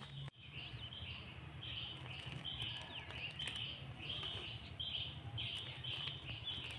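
Small birds chirping faintly, with short high calls repeating about once or twice a second and one falling call about three seconds in, over a low steady hum.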